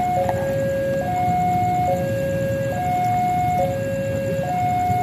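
Railway level-crossing warning alarm sounding: an electronic two-tone signal switching between a higher and a lower note a little faster than once a second, over a low rumble of road traffic.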